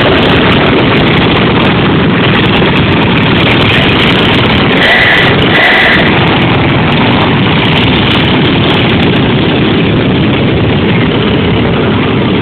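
Small parade vehicle engines running, loud and steady, with two short high-pitched beeps about five seconds in.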